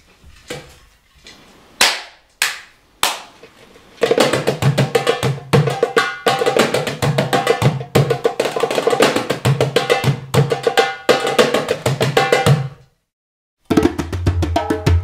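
Darbukas (goblet drums) played as an ensemble. A few sparse single strokes come first; about four seconds in, several drums break into a dense, fast rhythm of low and sharp strokes. Near the end the drumming stops for a moment, then resumes with a low steady tone underneath.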